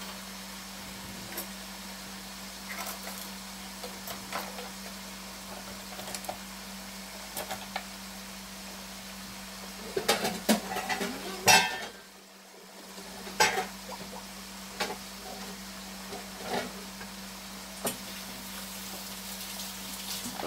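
Pork chops sizzling quietly in a pot over a steady low hum, with scattered clicks and knocks of kitchen things being handled; a louder cluster of clatter comes about ten seconds in, and another knock a couple of seconds later.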